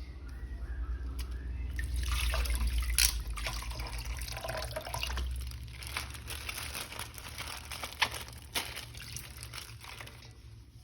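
Water running and splashing. It builds about two seconds in and then tapers off, with a few light clicks of handling.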